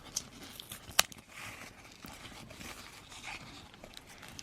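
An envelope and its paper contents being handled: soft rustling and scraping, with one sharp click about a second in.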